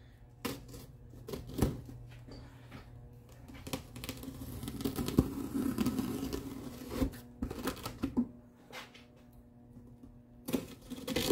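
Small razor blade slicing through filament-reinforced packing tape along a cardboard box seam, making a scraping, tearing noise for a few seconds mid-way. Scattered clicks and taps from handling the box come before and after.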